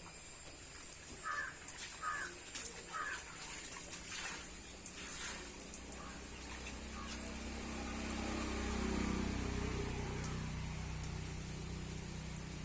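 A small dog whimpering in its sleep while dreaming: three short, high squeaky whimpers in the first few seconds. A low rumble rises in the second half and peaks around 9 seconds in.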